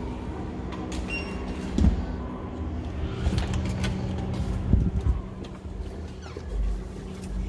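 Hotel room door opened with a key card: a short electronic beep from the card lock about a second in, then knocks and thumps of the handle and the heavy door swinging open, over a steady low hum.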